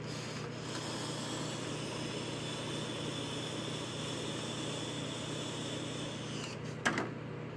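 Long draw on a Fireluke Mesh sub-ohm vape tank firing at 50 watts: a steady hiss of air pulled through the tank and heated mesh coil for about six seconds, ending with one sharp click near the end.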